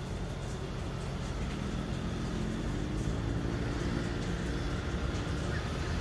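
Steady hum of distant city traffic, with one vehicle's engine drone becoming audible through the middle.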